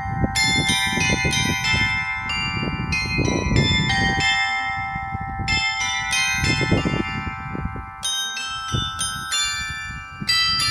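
Clockwork carillon of small tower bells playing a melody, with notes struck one after another and left ringing over each other. A low rumble runs underneath.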